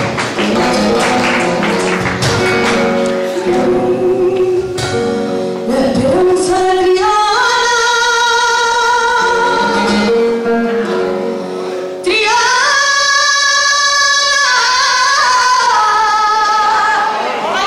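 Flamenco performance: a Spanish guitar plays under hand-clapping (palmas) for the first few seconds. Then a woman sings two long, held flamenco phrases over the guitar, sliding up into each one, the second starting about twelve seconds in.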